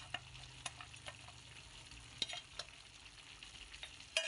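Pork igado simmering in a stainless steel pan on medium heat: a faint sizzle with scattered pops and crackles as the sauce cooks down around freshly added carrots. A low hum stops with a sharp click near the end.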